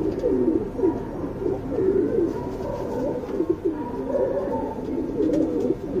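Domestic pigeons cooing, low warbling coos following one another without a break.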